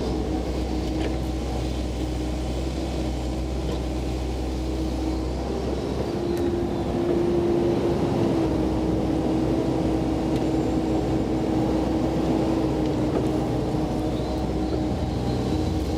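Komatsu PC88 excavator's diesel engine and hydraulics running steadily as it works. About six seconds in, the engine note rises a little and gets louder, then settles back near the end.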